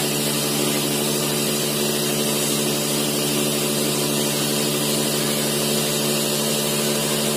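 Gas-heated cotton candy machine running: a steady motor hum from the spinning head with an even hiss over it.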